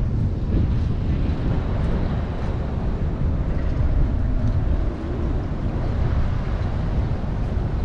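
Wind buffeting the microphone: a steady low, fluttering rumble.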